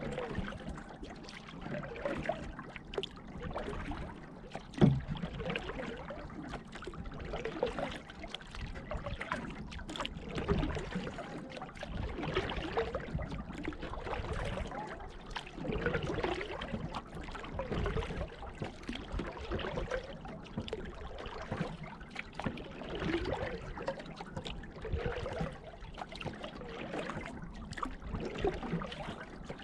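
Canoe paddling on calm water: the paddle dipping and pulling, with water trickling and dripping off the blade in uneven swells. A single sharp knock about five seconds in is the loudest moment.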